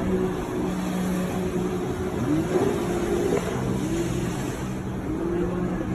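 Jet ski engine running at speed, its pitch rising and falling as it carves turns, over a steady engine hum and the rush of water and wind.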